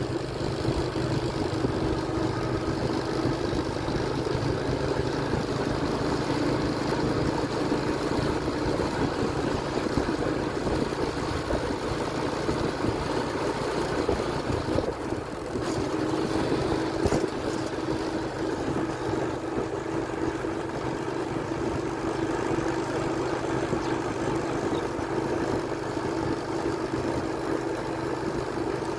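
Motorcycle engine running steadily while riding along, with a constant hum and road noise. The engine note briefly drops away about halfway through.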